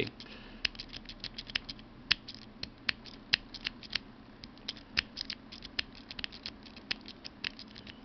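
A pick working the wafers in the metal override cylinder of a Master Lock TSA combination luggage lock, under tension from a wishbone tool: irregular sharp metallic clicks and ticks, several a second. The lock is brand new and fights the pick.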